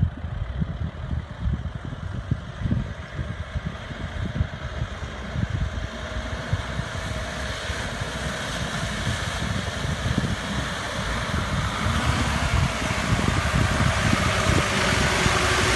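Toyota FJ Land Cruiser's engine running as it drives through a muddy, waterlogged track, growing steadily louder as it approaches, with wind rumbling on the microphone.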